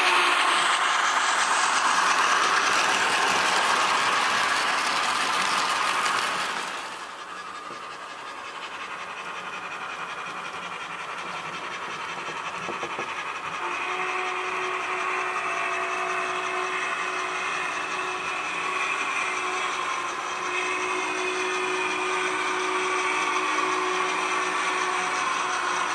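MTH HO-scale Clinchfield Challenger model train running on the layout track. The passenger cars rumble loudly along the rails close by for about the first seven seconds, then the sound drops away. About halfway through, steady high tones come in and hold for several seconds, break briefly, then carry on until near the end.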